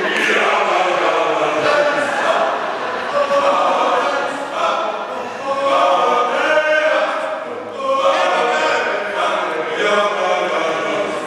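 Male choir singing a cappella in full harmony, phrase after phrase, with brief dips in loudness about five and eight seconds in.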